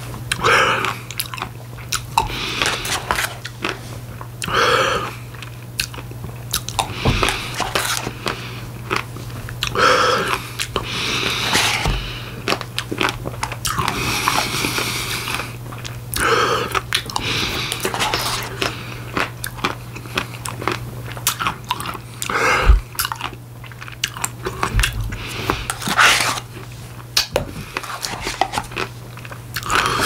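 Close-miked mouth sounds of someone eating a Dairy Queen M&M Blizzard by the spoonful: wet chewing and smacking, with irregular crunches of candy pieces.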